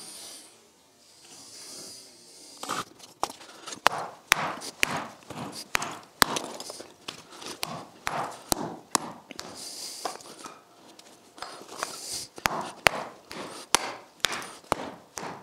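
Hammer smashing broken bricks packed into a floor trench. After about three seconds of quiet come repeated sharp blows, irregular and roughly two a second, breaking the bricks down into rubble fill.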